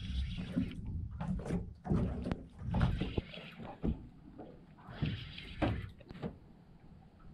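Irregular knocks and bumps on a small fishing boat, with low rumbling and three short hissing, splash-like bursts.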